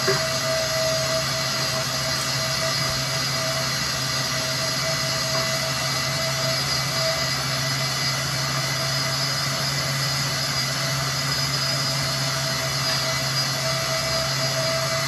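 Countertop blender motor running steadily at a constant speed, with an even mechanical hum and whirr.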